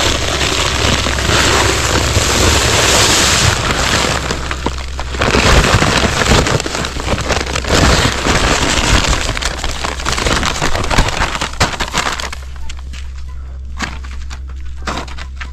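Dry Quikrete fast-setting concrete mix pouring from its paper bag into a post hole around a wooden post: a steady gravelly rushing hiss with rustling of the bag. The pour stops about twelve seconds in, leaving a few light knocks and rustles.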